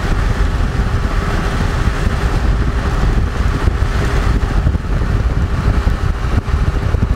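Wind buffeting the microphone: a steady low rumble whose loudness flutters rapidly.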